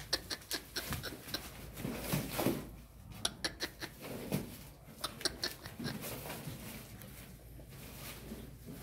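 Water buffalo shifting about on straw bedding: a string of sharp clicks and rustles from hooves and straw, with a few short low sounds mixed in.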